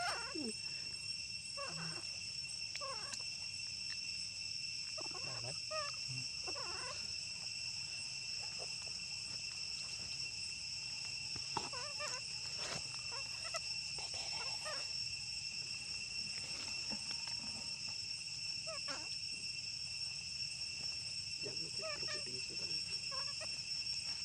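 Monkeys giving short, soft chirping calls every few seconds over a steady, high-pitched insect drone.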